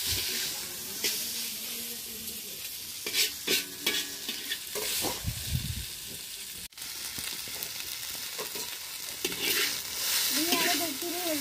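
Noodles sizzling in a wide metal wok over a wood fire, with a metal spatula scraping and clicking against the pan as they are stirred.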